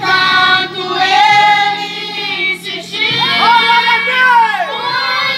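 A girl singing a gospel worship song into a microphone over instrumental accompaniment with a steady bass line, amplified through a sound system.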